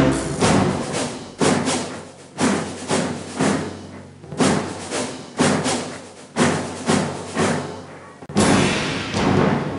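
Background music with a heavy, percussive beat about once a second, each hit dying away; near the end it turns fuller and continuous.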